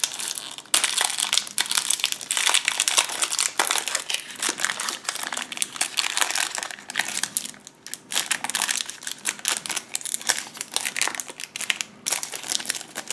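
Foil trading-card booster pack being torn open and crinkled by hand: continuous crackling of the foil wrapper with a few short breaks. The wrapper is stiff and hard to tear open.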